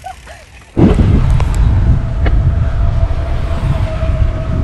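Bicycle rolling at speed: heavy wind rumble on the microphone sets in suddenly about a second in, with a steady motor-like whine from the bike over it.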